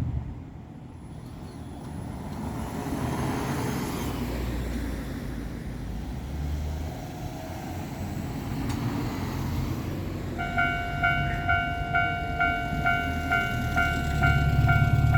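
Japanese level-crossing warning bell starts about ten seconds in: an electronic ding repeating a little over twice a second, warning that a train is coming. Before it, a road vehicle passes, and a low rumble builds near the end.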